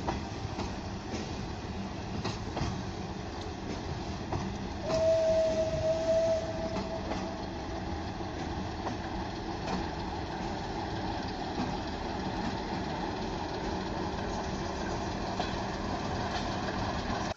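Passenger railway coaches rolling past on the track, wheels clicking over rail joints, with a ČSD T435 diesel locomotive pushing at the rear of the train. About five seconds in, a steady single-pitched tone sounds for about two seconds.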